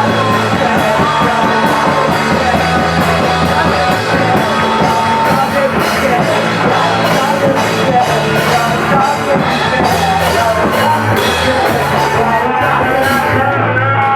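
A rock band playing live and loud: drums, bass and guitar with shouted singing over them. The cymbal wash drops away shortly before the end.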